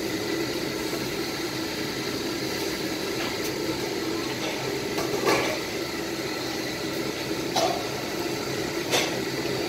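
Steady roar of a restaurant kitchen's high-powered gas wok stoves, with a few brief clatters about five, seven and a half and nine seconds in.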